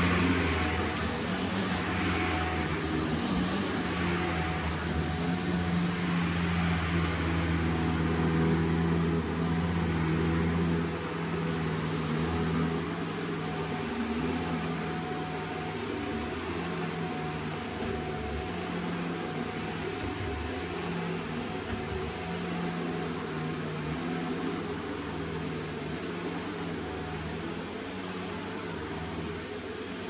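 Shark NZ850UKT corded upright vacuum cleaner running steadily during floor cleaning, a continuous motor hum with airflow noise. It is a little louder for the first ten seconds or so, then eases slightly.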